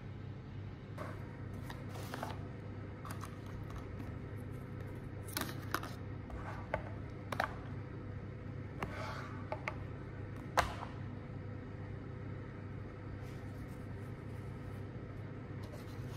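Plastic takeaway containers being handled and opened: scattered clicks and crinkles as lids are pried off small sauce cups and set on a table, with one sharper click about ten seconds in, over a steady low hum.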